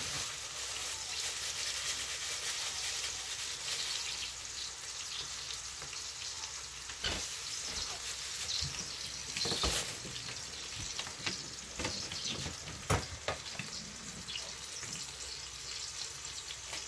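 Hamburger patties sizzling steadily in a frying pan, with a few sharp knocks of kitchen utensils now and then.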